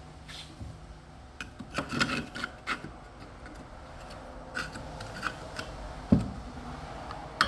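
Handling noises from work on a washing machine: scattered clicks, rubbing and scraping of parts, with a dull knock about six seconds in.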